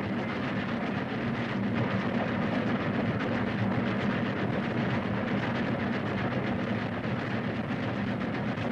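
Steam train running on the track, a steady rumble under an even hiss.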